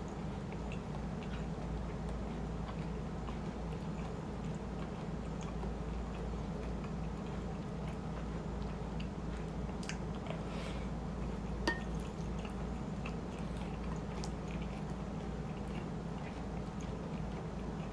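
Close-miked chewing and small wet mouth clicks from someone eating shrimp chili over rice, over a steady low hum. One sharp click, likely a utensil, stands out a little under halfway through.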